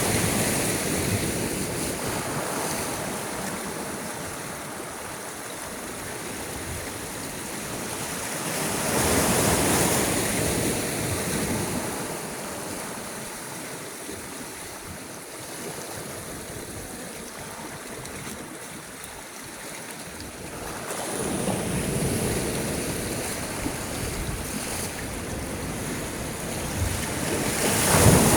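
Sea waves breaking: a steady rushing wash that swells with each incoming wave, peaking at the start, about nine seconds in, about twenty-one seconds in and again near the end.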